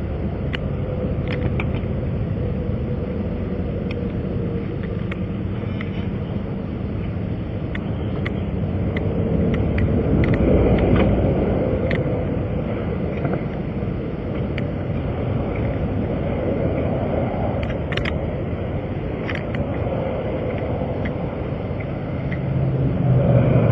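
Interstate traffic going by: a steady rumble that swells as vehicles pass, about ten seconds in and again near the end, with a few faint clicks.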